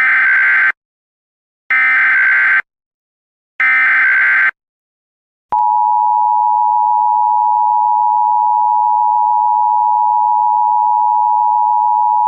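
Emergency Alert System tones: three short bursts of SAME digital header data, about a second apart, then the steady two-tone attention signal starting about five and a half seconds in. Together they mark the start of an Extreme Wind Warning alert.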